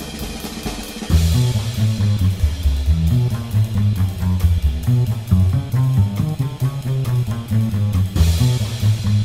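Background music with a drum beat and a bass line. The full beat comes in about a second in, and there is a cymbal crash near the end.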